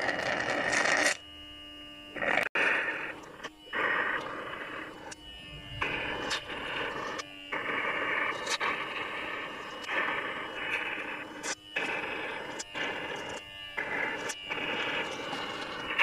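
Home-made vacuum honey extractor sucking honey from stingless-bee honey pots through a thin tube: a steady hissing, slurping rush of air over a faint steady hum, breaking off briefly again and again.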